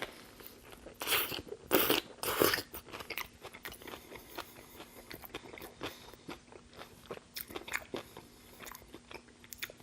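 Close-miked eating: three loud crunching bites into food about a second in, near two seconds and around two and a half seconds, then steady chewing with many small quick clicks.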